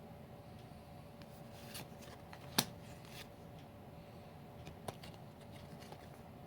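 Magic: The Gathering cards being handled: light rustling with a few sharp clicks, the loudest about two and a half seconds in and another near five seconds.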